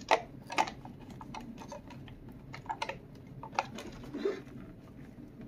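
Irregular plastic clicks and taps of a Roomba's roller brush being handled and fitted into the cleaning head's brush compartment, with a short scrape about four seconds in.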